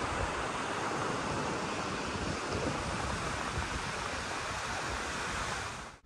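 Sea surf washing onto a sandy beach, a steady hiss with some wind, fading out at the end.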